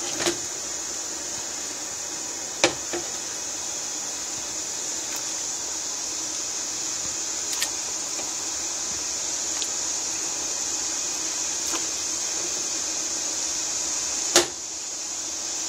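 Water with beef pieces boiling in an enamel stockpot: a steady hiss with a few sharp clicks, the loudest near the end.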